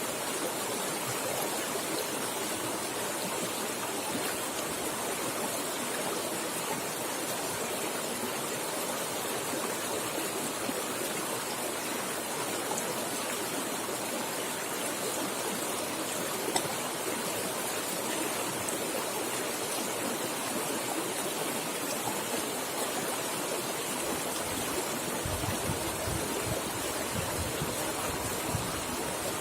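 River water flowing fast, a steady rushing splash with no break, and a little extra low rumble in the last few seconds.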